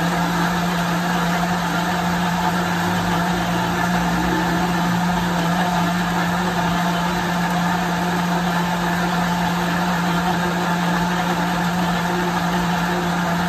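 Countertop blender motor running steadily, blending soaked Irish moss (sea moss) with water into a smooth pudding-like gel. The hum stays even, with no pinpoint crackle of pieces breaking up, which is the sign that the moss is fully blended.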